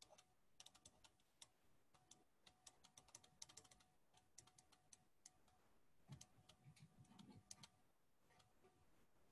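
Faint, light clicks and taps in quick irregular clusters, with a soft low bump about six seconds in, at near-silence level.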